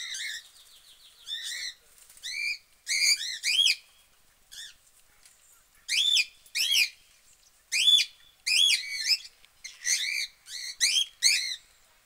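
Budgerigars chirping: short, sharp chirps that each rise and fall in pitch, coming in quick clusters with brief pauses, and a fast buzzy warble at the start.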